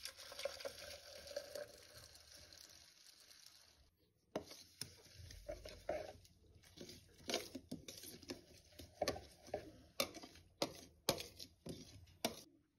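Milk pouring from a carton into a plastic measuring jug for about four seconds, then a metal spoon stirring the mix and clinking against the jug's sides in quick, irregular taps.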